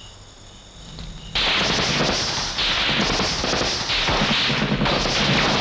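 Battle sound of gunfire and explosions, starting abruptly about a second and a half in and carrying on densely without a break.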